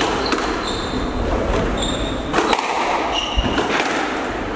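A squash rally: the ball is struck by rackets and hits the court walls with sharp cracks, among them a quick cluster of hits about halfway through, while the players' shoes squeak briefly on the wooden court floor several times. Everything echoes in the enclosed court.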